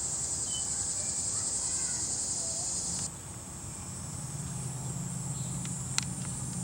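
Steady high-pitched insect chirring, like crickets, that drops abruptly about three seconds in and carries on fainter, over a low steady hum. A single sharp click comes near the end.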